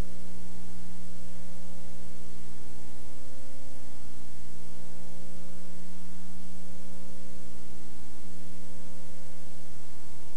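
Steady electrical mains hum with several steady tones over a constant hiss; the mix of tones shifts slightly about eight seconds in.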